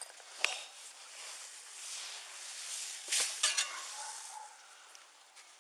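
Shovel digging into soil: a gritty scraping of dirt, with a sharp knock about half a second in and three more close together about three seconds in.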